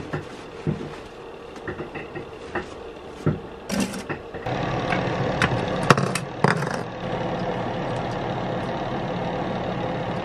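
Light clicks and rubbing as plastic fuel-filter parts are wiped and handled. From about four and a half seconds in, a small electric space heater's fan runs with a steady whir, and the parts click against each other a few times over it.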